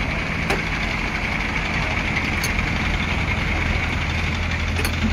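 Heavy diesel engines running steadily with a deep hum that strengthens in the second half, and a few light clicks.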